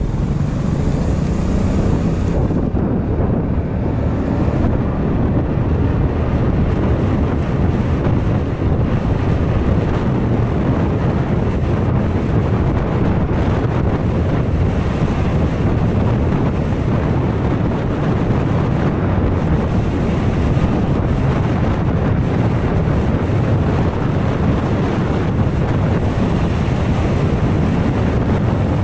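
Wind buffeting the microphone of a GoPro Hero 5 Black on a moving scooter, with the scooter's motor and road noise mixed in: a steady, heavy low rumble.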